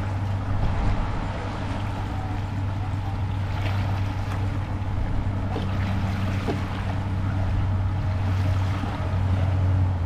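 Wind buffeting the microphone as a steady low rumble, over the wash of surf.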